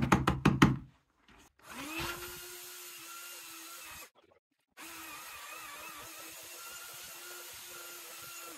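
A quick run of loud knocks, then a drill with a mixing paddle spins up about two seconds in and runs steadily, stirring soaked clay adhesive mortar in a bucket. It stops briefly near the middle and starts again, its pitch wavering slightly under the load.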